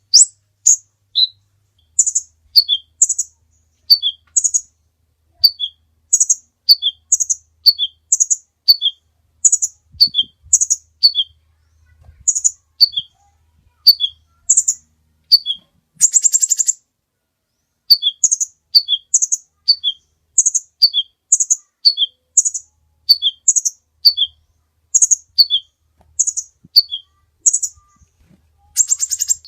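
Brown-throated sunbird (kolibri ninja) singing: a steady run of sharp, high chirps, mostly in pairs of a higher note followed by a lower one, about one pair a second. A buzzy trill breaks in about halfway through and again near the end.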